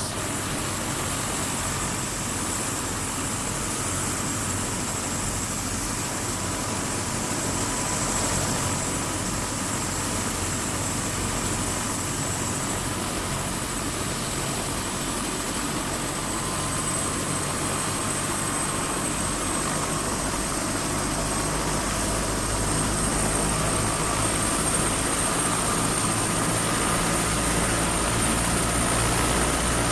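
Helicopter running steadily overhead: a continuous engine-and-rotor noise with high whining tones laid over it, slowly growing louder in the last third.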